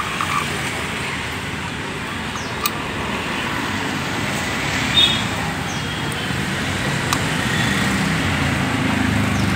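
Steady roadway traffic noise with a couple of short sharp clicks, growing louder near the end.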